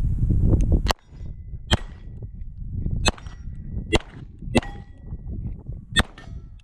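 Six pistol shots from a Beretta 92 at unevenly spaced intervals, fired at steel plates. Several shots are followed by a short metallic ring from a struck steel target.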